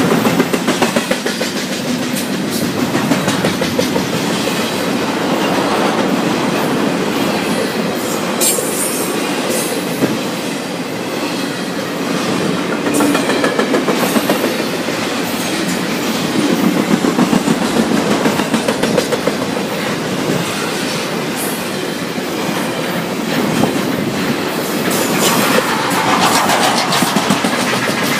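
BNSF intermodal freight train's doublestack container cars and trailer-on-flatcar cars rolling past at close range, a steady loud rumble with the wheels clicking over the rail joints.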